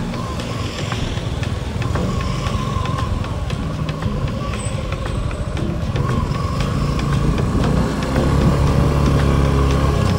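Motorcycle engine running under way, with the engine note growing stronger and louder near the end.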